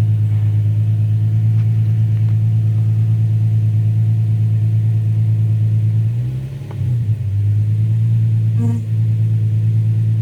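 Infiniti G35's 3.5-litre V6 idling steadily with a low exhaust drone, running normally after a replaced O2 sensor. About six seconds in the sound briefly dips and wavers, then settles back to the same steady idle.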